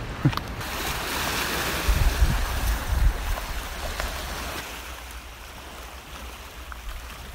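Small waves washing against a rocky shoreline with wind, heard as a steady rushing noise. A few low gusts buffet the microphone about two to three seconds in, and the rush eases off in the second half.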